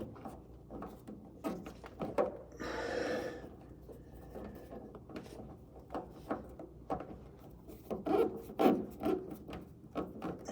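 Hand work on the car's body hardware, with scattered clicks and knocks and rubbing from tools, fasteners and the spoiler being handled. A longer scrape comes about three seconds in, and a denser run of louder knocks near the end.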